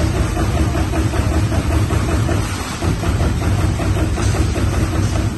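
TRUMPF TruPunch 5000 CNC turret punch press punching sheet metal: a rapid, even run of strokes, several a second, over the machine's steady running noise.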